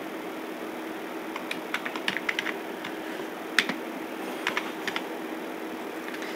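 Computer keyboard being typed on: short runs of quick key clicks with brief pauses between words, over a steady low hum.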